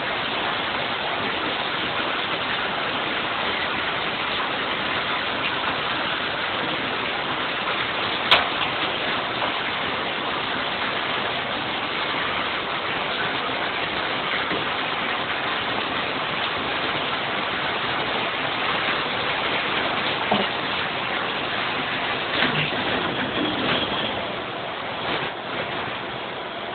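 Water from a handheld shower head spraying steadily over a macaw in a bathtub, with one sharp click about eight seconds in. Near the end the flow becomes uneven and a little quieter.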